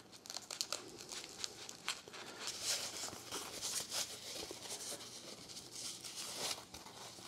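White foam packing sheet and plastic wrap rustling and crinkling as a package is unwrapped by hand, after a utility knife slits the tape near the start. Faint, irregular, with many small crackles.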